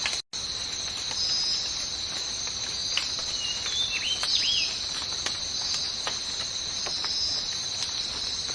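A steady, high-pitched insect chorus, crickets or cicadas, pulsing about once a second. A few short high chirps sound about three to four seconds in.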